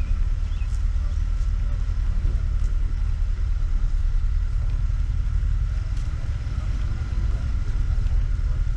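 Steady low rumble of a slow-moving vehicle's engine and road noise, heard through a hood-mounted camera, with wind on the microphone and a faint steady high whine over it.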